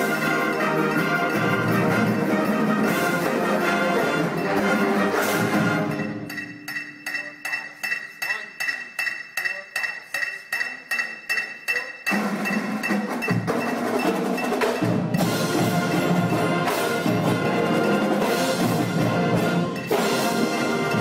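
Marching band show music. The full ensemble gives way about six seconds in to a sparse percussion passage of evenly spaced light strokes, about two and a half a second, over held high ringing tones. The full ensemble comes back in about twelve seconds in.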